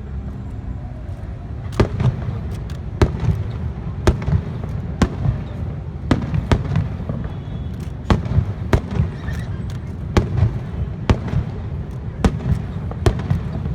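Aerial fireworks shells bursting: a string of sharp bangs beginning about two seconds in, coming every half second to a second over a steady low rumble.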